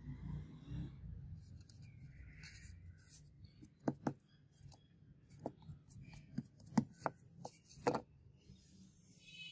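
Hands handling a paper template on a polystyrene foam block: faint paper rustling and a series of short, light taps and knocks as the paper is pressed flat, most of them in the second half.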